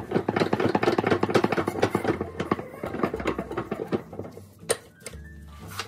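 Ratchet clicking rapidly for about three seconds as bolts on a power steering pump are run down, then a few slower, scattered clicks.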